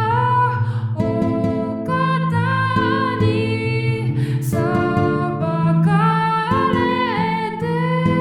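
Song backing music: plucked strings under a sustained melody line with wide vibrato, over changing bass notes.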